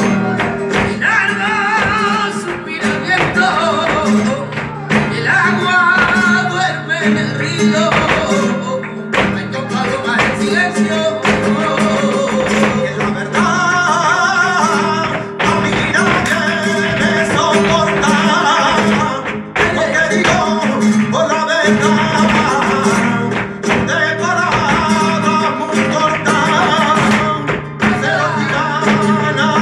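Live flamenco music: a flamenco guitar playing under a singer's wavering, ornamented voice, with frequent sharp percussive strikes from the dancers throughout.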